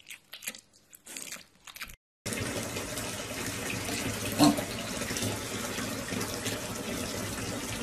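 Water running steadily into a bathtub around a piglet, with one short, loud piglet grunt about halfway through. Before the water starts there are a couple of seconds of light scattered taps and clicks.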